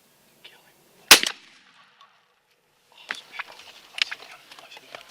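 A single loud gunshot about a second in, the shot at a turkey, with a brief echo. From about three seconds in it is followed by a quick, irregular rustling and clattering.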